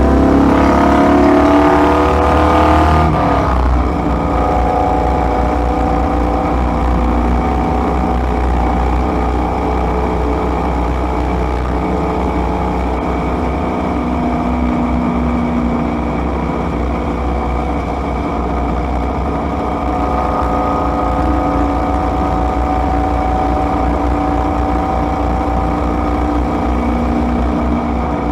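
Driving noise inside a moving vehicle's cabin: a steady low rumble with several steady engine and drivetrain tones. The tones rise in pitch through the first three seconds, as under acceleration, then hold steady.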